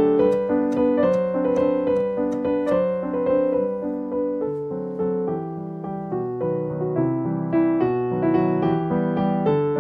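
Soft piano background music playing a steady run of notes. In the first few seconds it is overlaid by quick, evenly spaced taps of a chef's knife chopping dill on a wooden cutting board.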